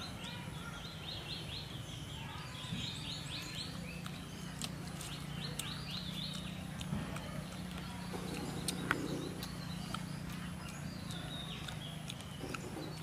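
High-pitched animal chirping in quick runs of short repeated notes, strongest in the first half, over a steady low hum, with a few scattered clicks.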